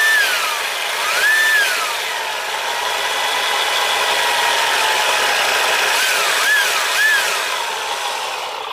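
HG P803A RC HEMTT truck's sound unit playing its simulated engine, revving up and dropping back about a second in and three times in quick succession near the end, over a steady electric motor whine.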